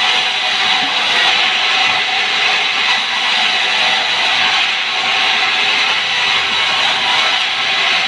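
Band sawmill cutting a log lengthwise: the band saw blade runs through the wood with a loud, even hiss that holds steady throughout.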